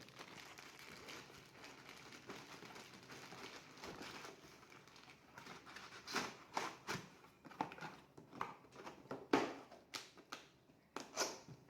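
Hands handling a laptop and its parts: scattered sharp clicks and short plastic rustles, sparse at first and coming thick and fast in the second half.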